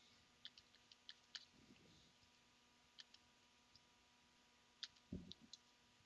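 Faint, scattered computer mouse clicks in near silence as brush strokes are painted: a cluster in the first second and a half, then a few more later. A soft low sound comes just after five seconds.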